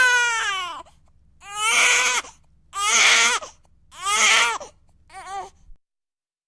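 A baby crying in a string of wavering cries about a second apart. The last cry is short, and then the crying stops abruptly.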